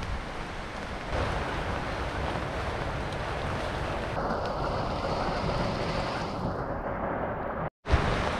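Heavy rain falling steadily, with gusts of wind on the microphone adding low buffeting. The sound changes abruptly at a few edits and drops out briefly near the end.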